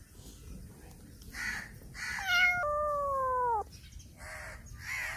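Young black kitten meowing loudly: a short call about two seconds in, run straight into a longer meow that falls in pitch, with fainter breathy calls around them.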